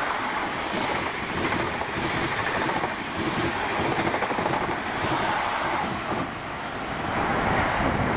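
Class 43 HST power car and its carriages passing through at speed: a continuous rush of steel wheels on rail with rapid clatter over the track, swelling and easing as the train goes by.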